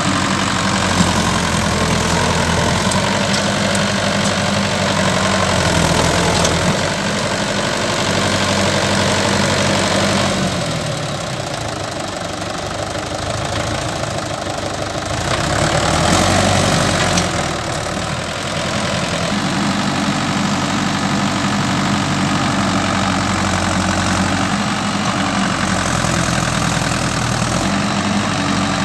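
Diesel engine of a Swaraj farm tractor running steadily under load as it pulls a trolley of soil over heaps of earth. The engine eases off about ten seconds in, surges again around sixteen seconds, then settles back to a steady run.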